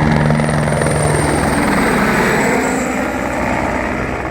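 Sheriff's helicopter passing low: a rotor and engine beat with a high turbine whine that slides slightly down in pitch, the sound fading as it moves away.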